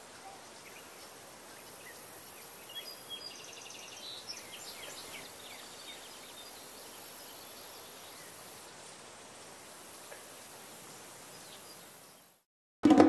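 Faint steady background hiss with a few soft, high chirps and a short trill a few seconds in. It cuts out near the end, and music with drums starts.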